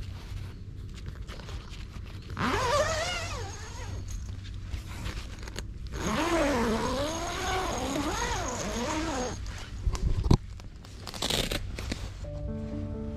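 Two drawn-out, wavering calls with a pitch that slides up and down, the second lasting about three seconds, over a steady low hum; a sharp knock follows about ten seconds in.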